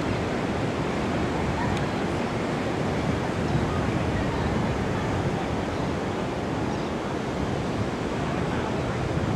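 Steady rush of Pacific surf, with wind on the microphone.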